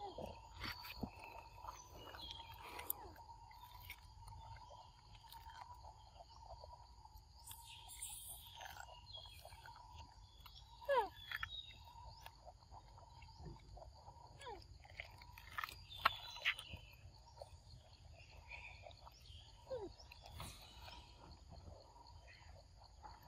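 Quiet forest ambience: a steady high hum, with scattered clicks and a few short falling chirps, the loudest about 11 and 16 seconds in.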